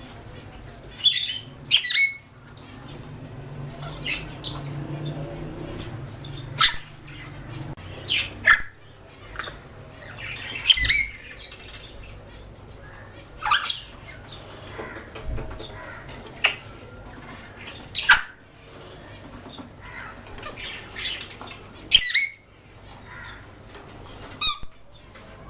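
African grey parrots giving short, sharp squawks and whistles at irregular intervals, about ten in all.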